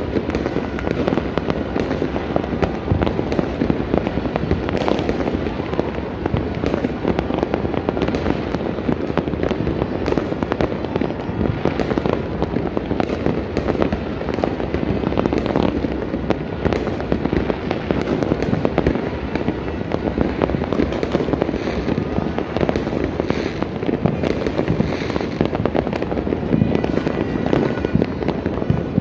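New Year fireworks and firecrackers going off all together in a dense, unbroken crackle, with sharp bangs standing out several times a second.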